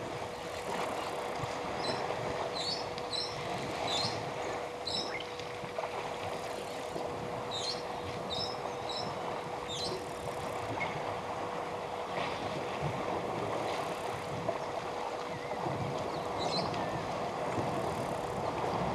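Water sloshing and splashing as a herd of African elephants wades and bathes in a waterhole, with a steady hum underneath. Short bird chirps come in several small bunches.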